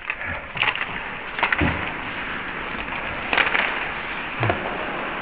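Ice hockey rink sound heard from the players' bench: a steady hiss of skating and arena noise, broken by several sharp knocks of sticks, pucks or equipment, one of them with a low thud.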